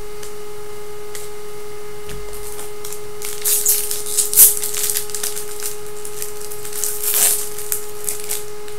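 Foil trading-card pack wrappers crinkling and tearing, with bursts starting about three seconds in and again near the end, over a steady hum.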